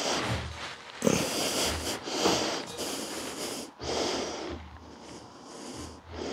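Steel parallette handle tube being slid and pushed into its base sleeve: bursts of metal-on-metal scraping and knocking, starting with a sudden knock about a second in.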